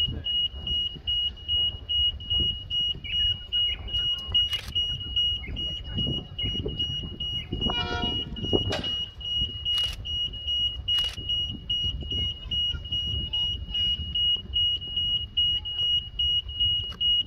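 Railway level-crossing warning alarm beeping in a rapid, even, high-pitched pulse, over a steady low rumble, with a few sharp clicks.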